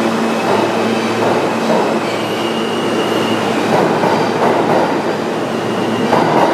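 Subway train running on the tracks: a loud, steady rumble and rattle, with faint high tones of wheel squeal now and then.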